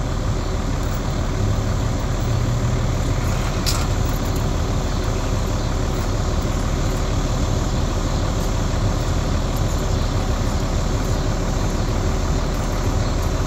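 A large vehicle engine running steadily, a constant low rumble with no change in speed.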